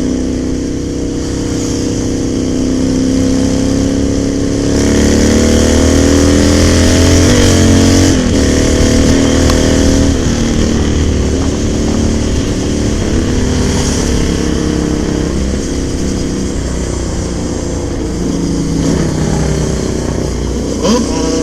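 Motorcycle engines running while riding in traffic, with rushing wind and road noise. The revs climb and the sound is loudest about five to eight seconds in, then settles and varies as the bike slows and speeds up.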